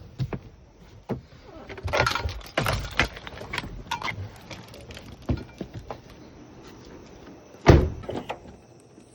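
Clatter and knocks of objects being handled, with rustling in between, and one heavy thump near the end.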